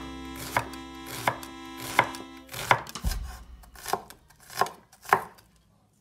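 Knife dicing an onion on a wooden cutting board: about eight sharp chops, one every three-quarters of a second or so. Soft background music fades out about halfway through.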